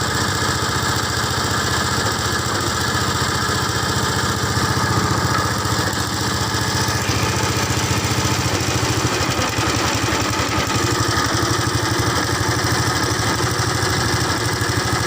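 A small petrol engine running loudly and steadily at an even speed.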